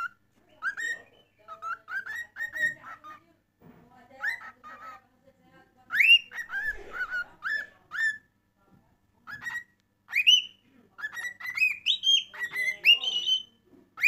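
Cockatiel singing: phrases of short, rising whistled notes with brief pauses between them, climbing higher and louder in the last few seconds.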